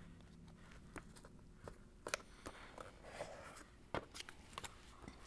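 Glue stick rubbed on paper while paper cutouts are handled and pressed down: faint, scattered taps and clicks with a soft rubbing about three seconds in.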